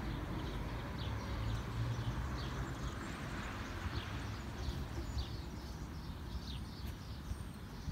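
Small birds chirping outdoors: many short, quick calls scattered throughout, over a steady low rumble of background noise.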